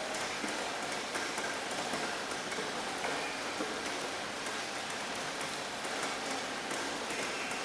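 Steady rain falling on a surface, a continuous patter with many small drop ticks throughout.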